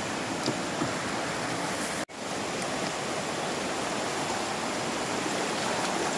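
Shallow rocky river rushing steadily over stones and small rapids, with a brief dropout about two seconds in.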